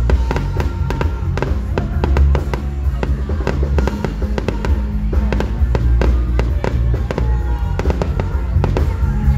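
Fireworks popping and crackling in many quick, irregular bangs, over music with a heavy bass beat.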